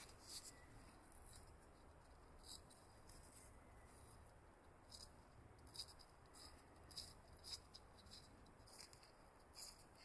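Faint scattered ticks and rustles of nitrile-gloved fingers handling a small, corroded metal lighter part.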